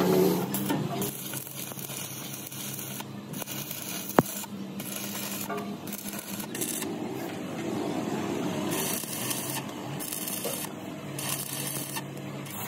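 Crackling, hissing noise of steel being cut with a gas torch and arc-welded, with a low steady hum under it in places. A single sharp click comes about four seconds in.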